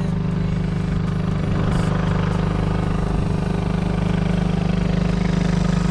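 Small outboard motor on a dinghy running with a steady drone. It has a fault that the owners suspect is gear oil lost from the lower unit after hitting a sandbank.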